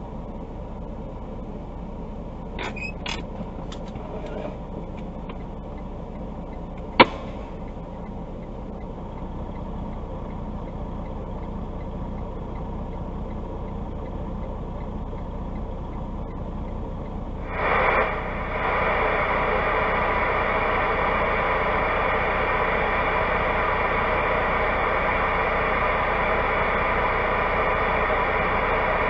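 Stationary truck's engine idling steadily, heard from inside the cab, with a few light clicks and one sharp click about seven seconds in. About eighteen seconds in, a louder steady rushing noise comes on and holds.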